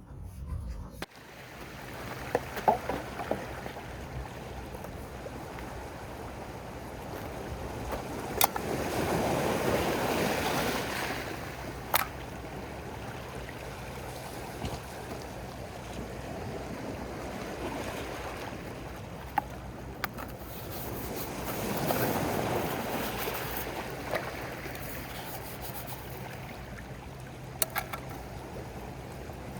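Sea waves washing in against the shore, swelling twice, with a few sharp clicks.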